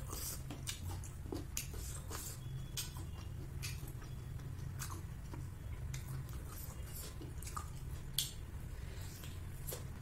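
Close-up chewing and biting of a fried chicken momo (dumpling), with frequent sharp mouth clicks and smacks. A steady low hum runs underneath.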